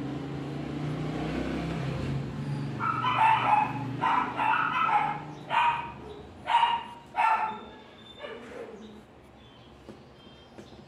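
A dog barking about six times in quick succession, over a low steady hum that fades out about four seconds in.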